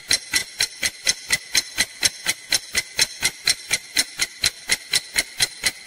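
Countdown clock ticking sound effect, about four even ticks a second with a faint metallic ring, timing the few seconds given to answer.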